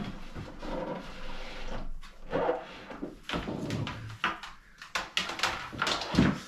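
Irregular knocks, clicks and rustling as hands fit hoses to a canister filter inside an aquarium cabinet.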